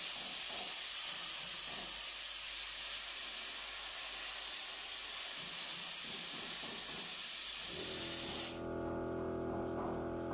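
Gravity-feed air spray gun hissing steadily as it sprays paint, cutting off about eight and a half seconds in. A quieter steady hum remains after it stops.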